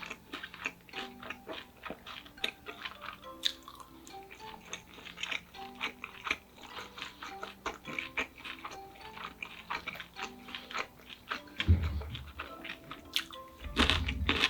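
Close-up crunching and chewing of crispy fried pork cutlet, many sharp crackles in quick succession, over soft melodic background music. Two low thuds come near the end.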